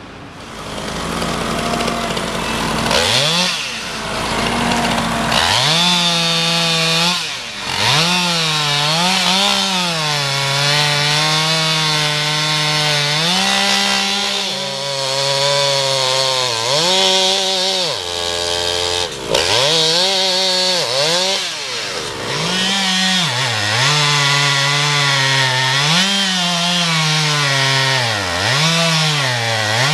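Two-stroke chainsaw cutting through a dead oak log. The engine speed repeatedly sags as the chain bites under load and then climbs back up.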